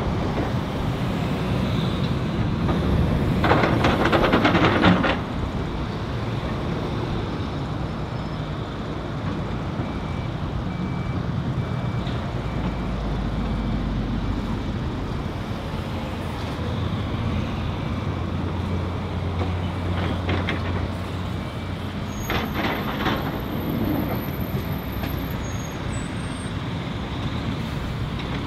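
Diesel engines of excavators and a dump truck running steadily, with a loud rattling clatter about 3 to 5 seconds in and again around 20 and 23 seconds as loads of dirt and stones are dumped into the truck's steel bed. A faint beeping about once a second sounds near the middle.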